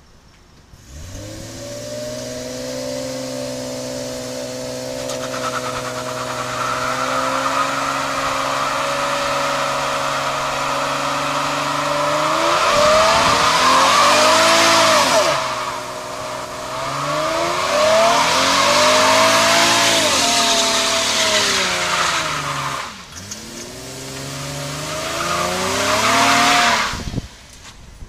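Fifth-generation Chevrolet Camaro doing a burnout. About a second in, the engine revs up and holds steady high revs while the rear tyres spin and squeal. In the second half the revs swing up and down in three waves, and the engine cuts off near the end.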